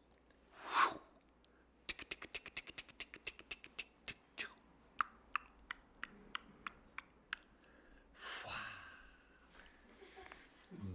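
A run of sharp clicks, quick at first (about six a second) and then slowing to two or three a second, set between two short breathy hisses.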